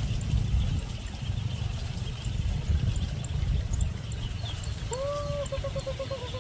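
Farm animals over a steady low rumble: faint high chirping throughout, then a drawn-out, quavering animal call about five seconds in.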